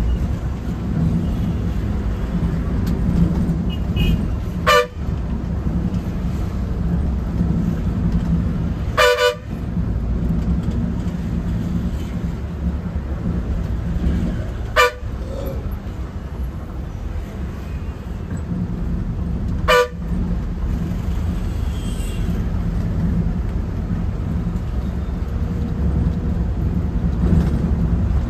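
Bus running with a steady low engine drone, its horn tooting four short times about five seconds apart.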